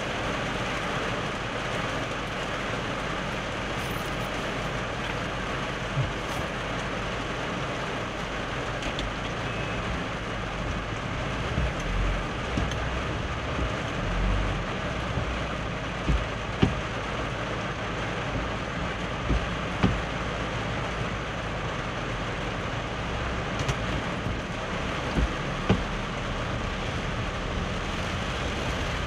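Heavy rain falling on a car's roof and windshield, heard from inside the cabin as a steady hiss with occasional short low thumps.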